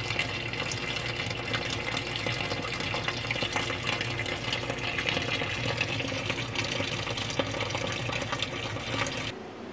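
Stream of water pouring and splashing onto plastic bubble wrap laid over the substrate during an aquarium's first fill, a steady splashing that stops abruptly near the end.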